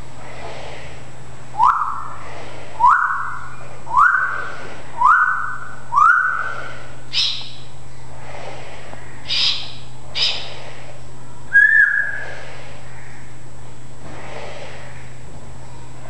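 Timneh African grey parrot whistling: a run of five short whistles about a second apart, each sliding up and then holding, then a few higher short chirps and one last whistle near the end.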